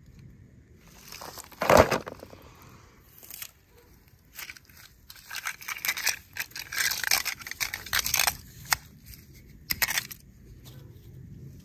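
Handling noise: one knock about two seconds in, then scattered crackling and rustling as toy cars and a felt stocking are moved about on grass and dry leaves.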